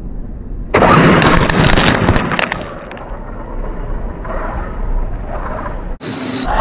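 Small radio-controlled rally car driving over loose dirt and grit: a rough noisy rush of tyres and grit with a few sharp clicks. It is loudest from about one to two and a half seconds in, then quieter, and changes abruptly near the end.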